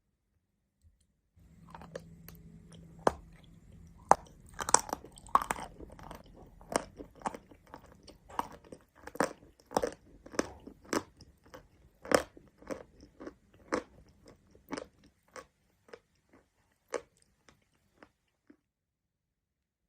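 Person biting into and chewing crunchy mountain chalk close to the microphone: two sharp snapping bites, then steady crunching chews about two a second that thin out and stop near the end.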